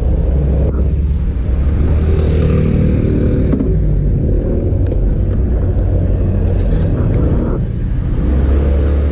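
Small scooter engine running as the scooter pulls away and rides on, with a steady low rumble under it.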